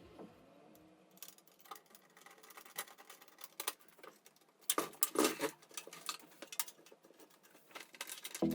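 Irregular light clicks, taps and scrapes of computer hardware being handled, with a louder burst of clatter about five seconds in. Music starts again right at the end.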